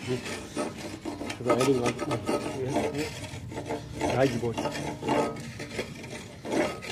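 Curved iron blade scraped along a wooden handle in a series of uneven, rough strokes, shaving off bumps and splinters so the handle won't hurt the palm.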